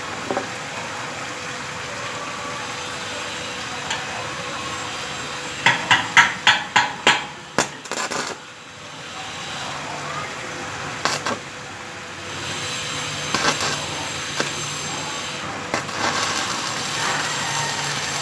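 About seven quick hammer blows on metal, roughly three a second, in the middle, with a few single knocks later. A low steady motor hum starts about two-thirds of the way through.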